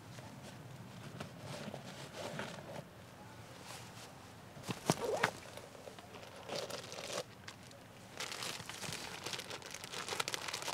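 Irregular rustling and crinkling of gloves and bag fabric being handled at a bicycle's handlebar, with crunches of feet shifting on dry leaf litter and a sharp click about five seconds in.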